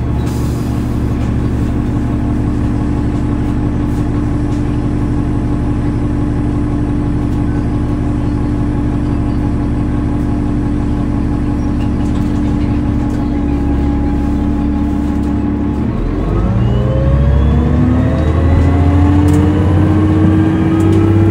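Cummins ISL 8.9 L turbocharged inline-six diesel in a 2005 New Flyer D40LF bus running steadily, then revving up as the bus accelerates from about 16 seconds in, the pitch climbing, with a sudden pitch drop right at the end as the Voith automatic transmission shifts up.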